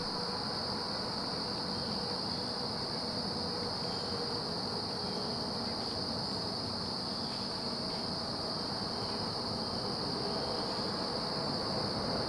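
Steady chorus of crickets: an unbroken high-pitched trill that never lets up, over a soft low background hiss.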